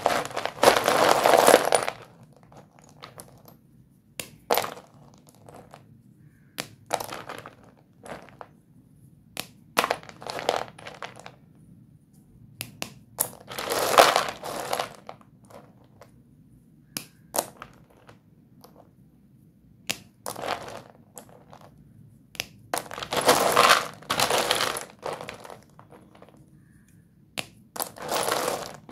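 Doms white dustless chalk sticks clattering and clinking against one another as a hand stirs and scoops through a heap of them in a plastic tub. The clatter comes in bursts: a loud one at the start, about halfway, and two more near the end, with scattered single clicks between.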